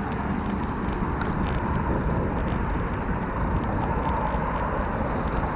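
Steady rumbling wind noise on the microphone, mixed with road noise, with no distinct events.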